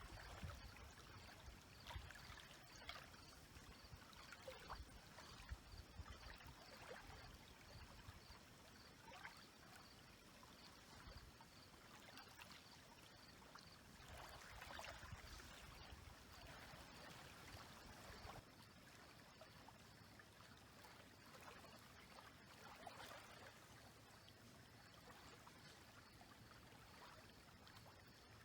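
Small lake waves lapping and splashing softly against the shore, a quiet wash every few seconds with a slightly bigger splash about halfway through.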